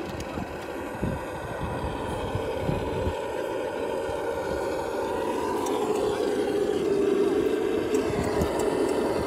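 Electric motor and drivetrain whine of a Traxxas TRX-4 RC crawler driving over a trail, its pitch shifting up and down with the throttle and growing louder toward the end, with a few low knocks in the first few seconds.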